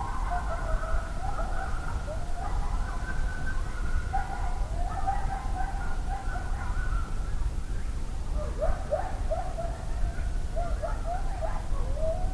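A pack of coyotes howling in chorus, several voices wavering over each other. A run of short yips comes about two-thirds of the way through, and one long howl rises and holds near the end.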